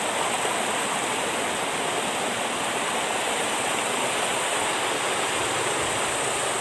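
Steady rush of fast water flowing down a steep concrete irrigation channel.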